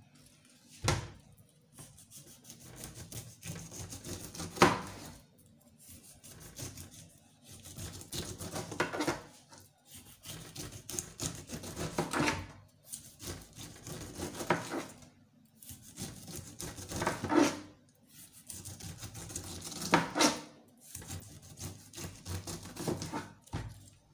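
A kitchen knife slicing the tough, scaly skin off a whole pineapple on a cutting board: repeated rasping cuts in bursts of a few seconds, with a sharp knock every few seconds.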